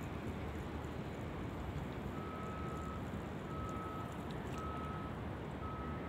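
Steady low outdoor rumble by open water, with a high electronic beep repeating about once a second from about two seconds in.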